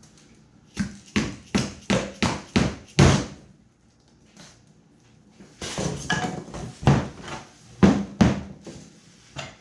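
A run of sharp taps, about three a second, then a few more irregular knocks: sharpened spikes being tapped into the foam to pin a glued piece in place.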